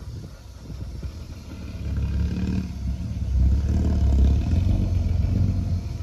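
Heavy diesel engine of earth-moving machinery working hard, its low rumble building about two seconds in and staying loud.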